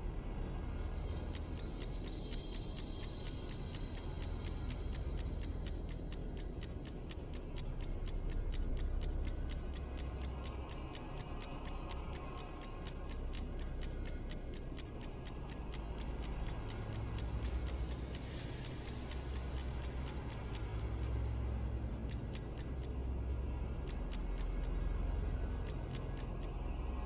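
Clock ticking steadily, starting about a second in, over a low droning background that swells and fades.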